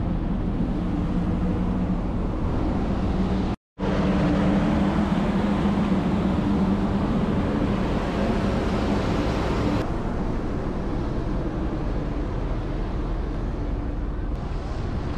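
Ferry engine running with a steady low hum under wind and water noise, heard from on board; the sound cuts out for a split second just under four seconds in.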